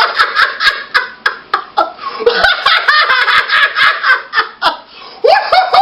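Hearty laughter: a long run of quick, high-pitched laughs.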